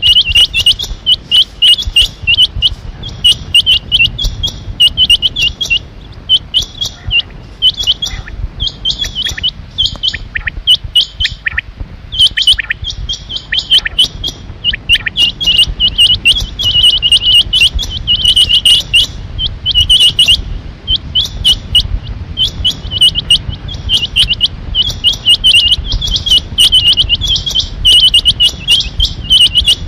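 Rain quail calling: rapid, high, sharp notes repeated over and over in bursts, with short pauses between the bursts.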